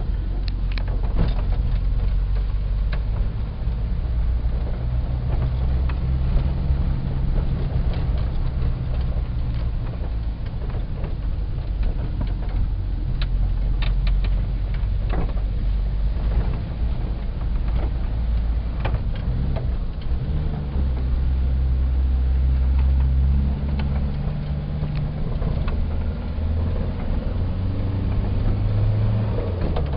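VW bus engine pulling along at low speed, heard from inside the cab, its drone changing pitch with the throttle and gear changes and rising near the end. Short rattles and clicks from the cab can be heard over it.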